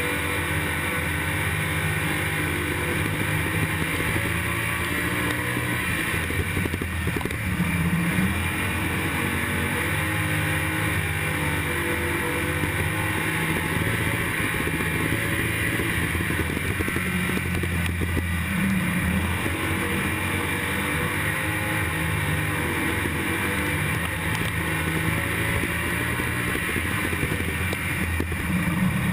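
IMCA stock car's V8 engine running hard at racing speed, heard from inside the cockpit. The engine note holds steady, swelling in pitch about every ten seconds.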